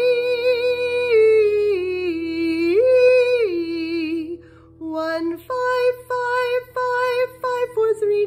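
A woman singing a legato vocal exercise on an 'ee' vowel. She leaps up to a held note, steps down, leaps up again, then sings a run of quick repeated notes pulsed on the breath without stopping, over a faint held accompaniment.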